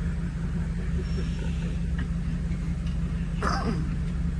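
3.6-litre V6 of a lifted 2013 Jeep Wrangler running steadily at low crawling speed, a constant low drone. A short, brighter sound cuts in briefly about three and a half seconds in.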